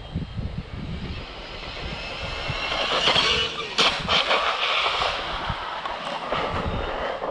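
Arrma Senton 6S RC short-course truck on a speed run: its brushless electric motor and tyres make a rushing noise that grows louder over the first few seconds, then stays strong, with a sharp crack about four seconds in.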